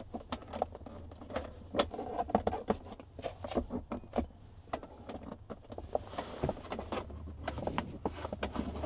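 Irregular clicks, knocks and clunks of latches and plastic trim as the removable second-row center seat of a Toyota Highlander is unlatched and handled, over a low steady hum.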